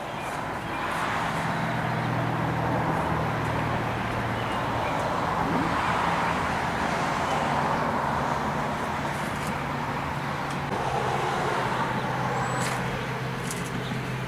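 A steady low motor hum under a constant rush of noise, like a vehicle running at an even speed, with a few faint clicks near the end.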